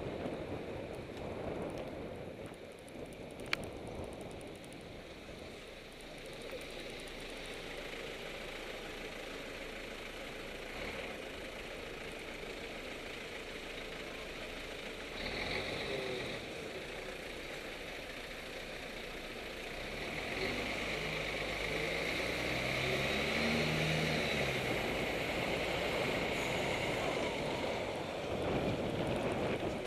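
Street traffic heard from a moving bicycle: wind rushing over the microphone and the engines of cars and a city bus close by. About twenty seconds in an engine gets louder, rising in pitch as it speeds up. A single sharp click comes a few seconds in.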